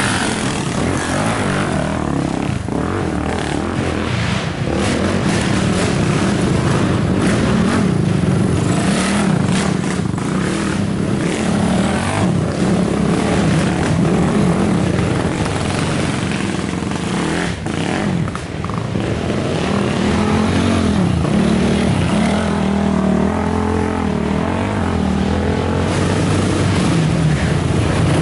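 Big-bore sport quad (ATV) engines revving up and easing off as the quads pass close by one after another. The engine pitch rises and falls repeatedly with the throttle.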